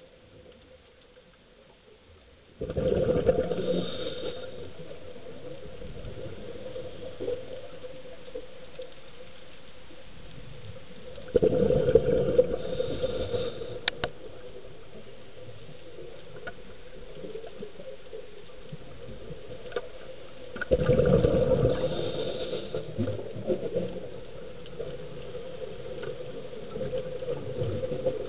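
Underwater sound picked up by a camera below the surface: a steady low hum, broken three times by a loud rushing burst of about two seconds, the bursts some nine seconds apart.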